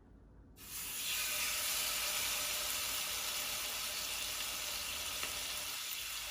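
Marinated chicken thighs shallow-frying in hot oil in a pan: the sizzling starts suddenly about half a second in and then goes on steadily.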